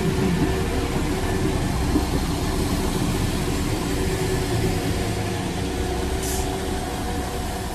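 A vehicle running steadily: a low rumble with faint steady hum tones, a short hiss about six seconds in, and the sound easing off slightly near the end.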